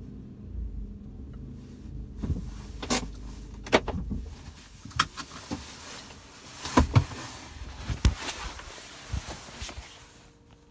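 Irregular sharp knocks and clicks inside a Mk7 Volkswagen Golf GTI, about a dozen spread over several seconds, the loudest paired around the middle; the car's low running hum fades out at the start. They fit the interior rattle the car is being recorded for.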